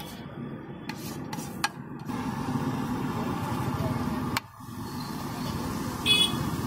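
Street-food stall din over a busy street: a steady hum of traffic and engines, with a few sharp clicks of metal on the iron griddle in the first two seconds and a brief shrill sound near the end.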